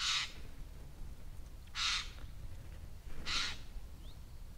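Harsh calls of a crow-family bird perched just overhead: three short calls about a second and a half apart.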